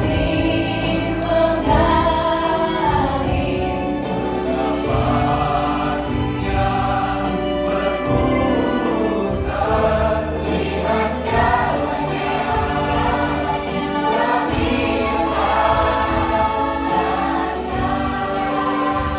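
Background music: a song with sung vocals over sustained bass notes.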